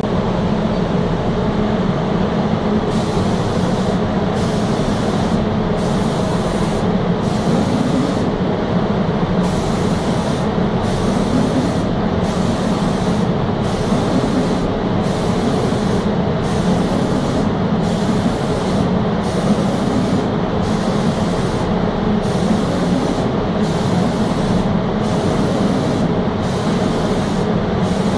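Automatic spray painting machine applying PU finish over a steady machinery hum. The spray gun's high air hiss starts about three seconds in and then cuts out for a moment about every second and a half.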